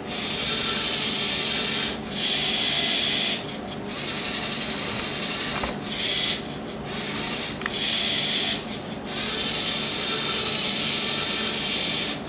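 LEGO Mindstorms NXT 2.0 pen plotter at work: its NXT servo motors and plastic gear trains whir in a series of runs, a few seconds each, with brief pauses and changes in pitch between moves as the pen is driven across the paper. Two shorter runs, about two seconds in and about eight seconds in, are louder and higher.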